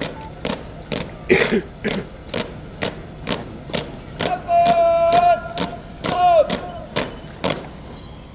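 Military band drum keeping a steady marching beat, about two strikes a second. Partway through come two long, drawn-out shouted calls, one held level and one falling at the end.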